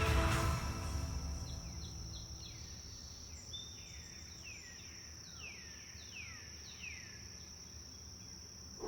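Background music fading out in the first second, then a steady high insect drone. Over it a bird gives a run of short whistled notes, each falling in pitch.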